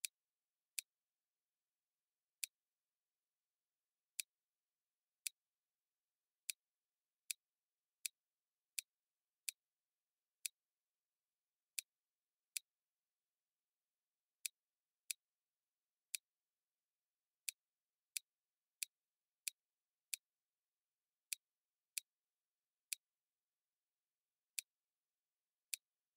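Sharp single clicks at irregular intervals, about one a second, from clicking the view-rotation buttons in a computer program, with dead silence between them.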